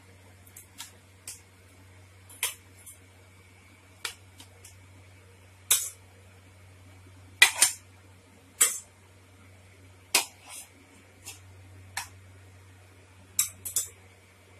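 Scattered sharp clinks and taps of a kitchen utensil against a metal cooking pot, about a dozen over several seconds, as boiled whole onions are picked out of half-boiled chicken and stock.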